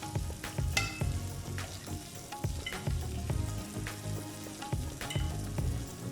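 Zucchini sizzling as it fries in a pan, with background music playing under it.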